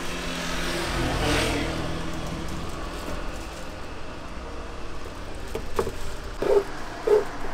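Street traffic: a car passing about a second in, over a steady low hum. A few short knocks near the end.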